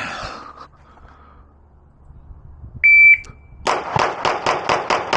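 A shot timer gives one short, high start beep, and a little under a second later a pistol opens a rapid string of shots, about four a second and evenly spaced, running on past the end.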